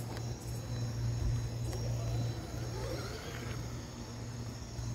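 Traxxas Maxx radio-controlled monster truck driving across grass, its electric motor running with a pitch that rises and falls with the throttle, over a steady low hum.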